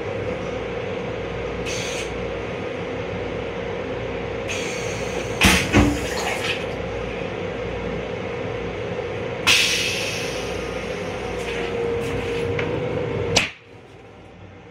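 Metro-North M7 railcar toilet running its flush cycle: a steady pump hum with rushing water and a few sharp clunks. It stops abruptly with a click about 13 seconds in, leaving the quieter running noise of the train.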